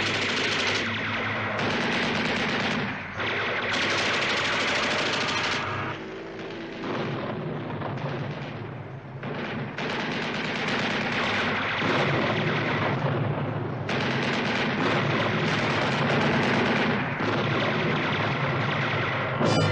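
Jeep-mounted heavy machine gun firing long bursts of several seconds, with short breaks between bursts.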